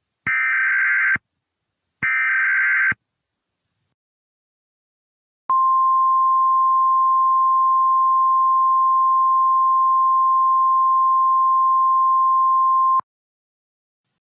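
Emergency Alert System SAME header tones: two short bursts of buzzy digital data tones about a second apart. After a pause comes the single steady NOAA Weather Radio 1050 Hz warning alarm tone, held for about seven and a half seconds and cutting off cleanly. Together they signal an incoming emergency alert.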